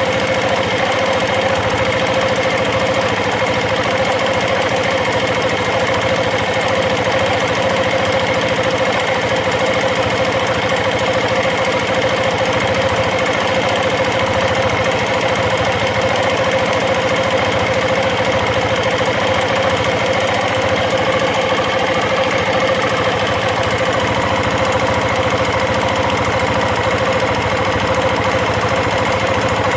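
KTM 690 Enduro single-cylinder engine running steadily at idle with a fast, even mechanical ticking chatter. The owner takes it for valve chatter that shows up once the engine is warm, after a rebuild with new rockers and shafts and freshly shimmed valves.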